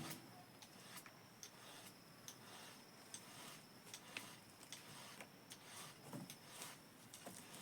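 Near silence, with faint scattered clicks at uneven intervals and a faint thin high tone that comes and goes; no chainsaw is running.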